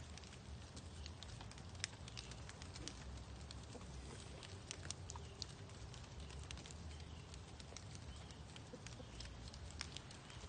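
Light, irregular pattering and ticking on leaf litter, several small sharp clicks a second, over a steady low rumble.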